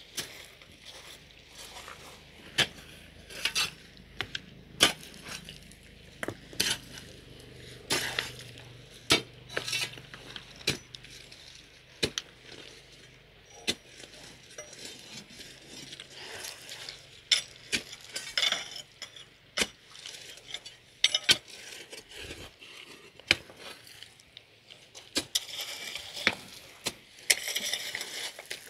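Picks and an iron bar striking river stones and gravel: irregular metallic clinks and knocks, sometimes several close together, with gravel scraping between them.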